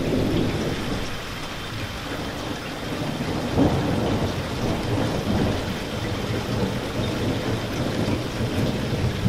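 Heavy rain falling steadily with thunder rumbling low underneath, and one louder surge of thunder about three and a half seconds in.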